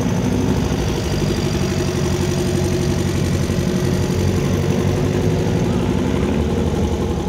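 Antique motorcycle engine idling close by, a steady, fast, even pulse of firing.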